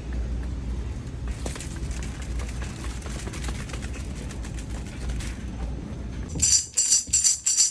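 Low rumbling noise, then about six seconds in a tambourine-like jingle starts, struck or shaken in a steady beat of about four a second.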